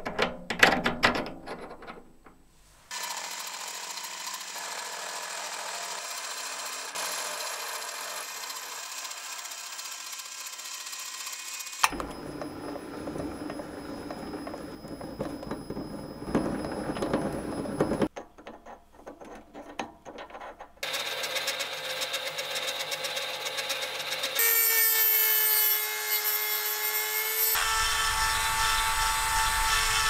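A steel shaft clicks as it is fitted into a metal lathe chuck. Then the lathe runs while a threading insert cuts a thread on the shaft. Near the end a high-speed rotary tool whines at a steady pitch as it grinds a slot into the shaft.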